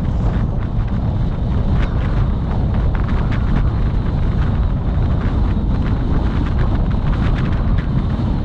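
Steady road rumble from a moving vehicle with wind buffeting the microphone, plus a few faint clicks or rattles.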